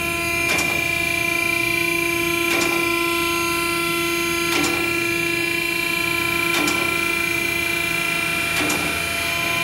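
Electric hydraulic car lift running steadily as it raises an SUV, its pump motor giving a constant hum, with a sharp click about every two seconds.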